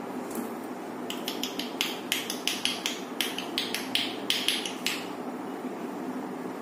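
Wrist bangles clinking in a quick run of sharp clicks, about five a second, as hands roll a ball of paratha dough between the palms. The clicks start about a second in and stop near five seconds, over a steady low hum.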